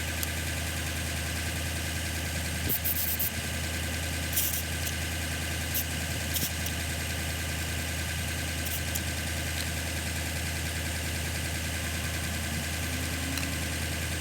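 Viair 400P portable 12-volt air compressor running steadily while inflating a truck tyre, with a few short hisses partway through.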